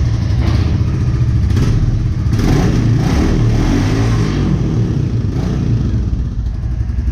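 Motorcycle engine running and being revved, with a few brief rises in the exhaust note.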